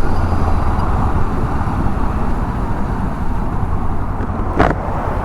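Steady riding noise from a 2014 Honda CB500X on the move: wind and road rush with the parallel-twin engine running underneath. A single short, sharp sound comes near the end.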